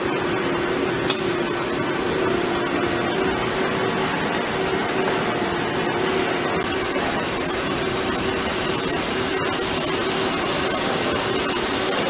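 DAMA GMDC-3100 CNC plate drilling and cutting machine running: a steady mechanical hum with one even tone and a single sharp click about a second in. The noise turns hissier after about six and a half seconds.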